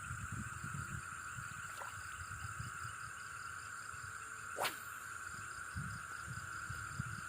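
Steady high-pitched buzzing chorus of insects, with soft low rumbles of handling or wind. About four and a half seconds in, one quick whistle sweeps steeply down in pitch.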